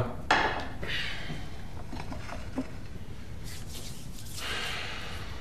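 Quiet room tone with a short rustle just after the start, a few soft clicks, and a soft hiss from about three and a half to five seconds in.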